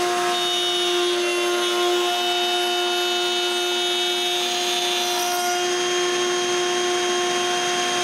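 Table-mounted router running at speed while a mahogany board is fed along the fence, cutting a groove: a steady motor whine with the hiss of the bit cutting wood.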